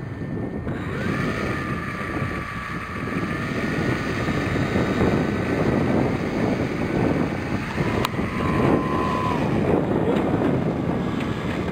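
Heavy wind buffeting the microphone, with the thin whine of an E-flite Cub RC plane's electric motor and propeller in flight from about a second in, its pitch shifting slightly.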